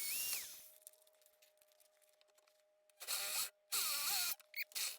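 A handheld power drill running in three short bursts, each with a whine that shifts in pitch: one right at the start, two more about three and four seconds in.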